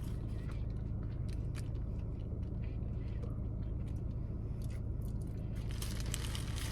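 A person chewing food close to the microphone, with small wet mouth clicks over a steady low hum. A rustle builds near the end.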